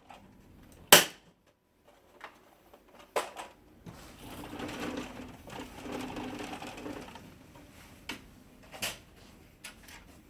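Plastic printer side cover being snapped onto the frame: a loud sharp click about a second in, then scattered lighter clicks, with about three seconds of rougher scraping in the middle as the cover is worked into place.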